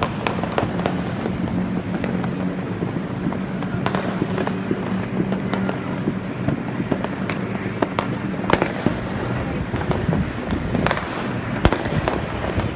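Many New Year fireworks going off at once: a dense, continuous crackle with sharper single bangs every few seconds.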